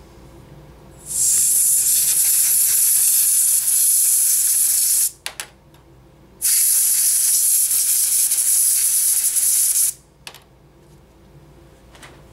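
Canned air duster spraying through its thin straw into a slotted photo sensor in two long hissing blasts, each about three to four seconds, with a couple of light clicks between them. The air blows accumulated dust out of the sensor, dust that keeps the spoon from working properly.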